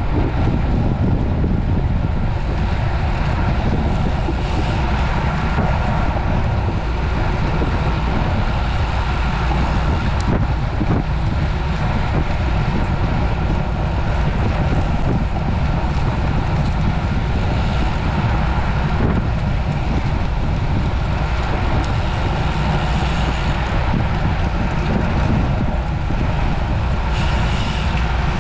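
Steady wind noise buffeting the microphone of a camera carried on a road bicycle riding at race speed.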